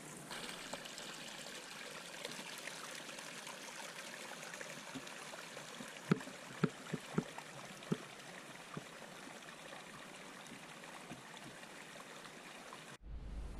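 Small hill stream trickling steadily through a narrow, grassy channel, with a handful of short gurgles just past the middle. Near the end it cuts to a low rumble.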